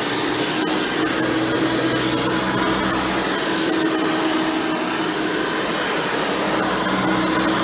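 Hoover Elite Supreme upright vacuum running steadily, a continuous rush of air over a steady hum, with its single-row stiff-bristle brush roll spinning and its motor fitted with a 20-blade fan.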